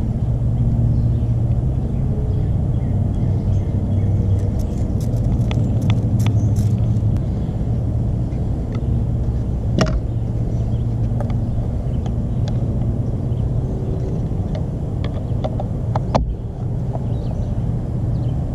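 A steady low motor-like rumble in the background, with scattered sharp plastic clicks and knocks as a replacement hatch release switch and its wiring are handled and fitted into the tailgate handle trim; the clearest clicks come about ten seconds in and again near sixteen seconds.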